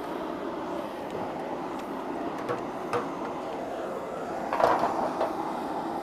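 A pot boiling on a stove burner, giving a steady rushing, bubbling noise, with a few light knocks of utensils against the pot. The loudest knocks come about three-quarters of the way in.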